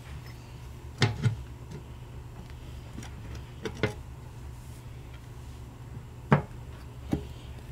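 Metal clunks and taps as a tractor transmission's metal top cover is slid and worked into place on the case over a new gasket: two knocks about a second in, a pair near the middle, the loudest a little after six seconds and one more shortly after. A steady low hum runs underneath.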